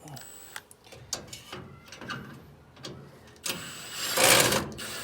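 Small clicks of tool on metal, then a power drill-driver whirring for about a second as it backs out a headlight retaining screw.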